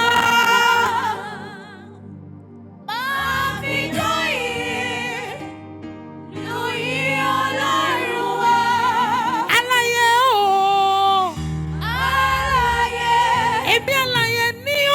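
Gospel praise singing: a voice holds long, wavering notes over a low bass accompaniment, dropping quieter twice before the singing swells again.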